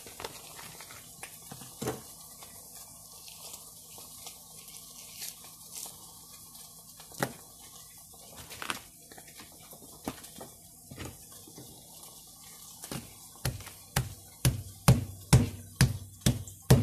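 Plastic bag rustling with scattered light clicks while food is handled. About three-quarters of the way through, something starts being hit on a wooden surface: a regular run of thumps, about two a second, getting louder.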